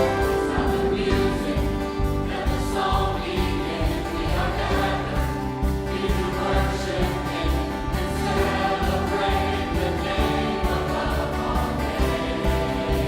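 A choir singing a Christian anthem with orchestral accompaniment, over a steady beat.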